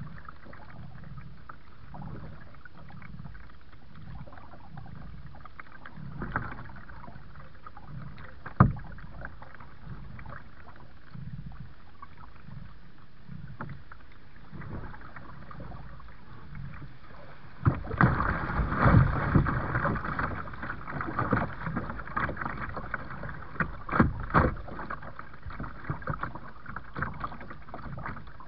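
Kayak paddle strokes in the water in a steady, even rhythm, with one sharp knock about a third of the way through. About two-thirds in, the sound turns into louder, choppier splashing water.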